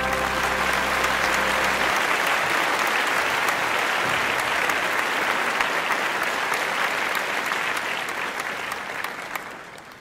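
Audience applause, a dense steady clapping that fades out near the end. The song's final held chord dies away under it in the first two seconds.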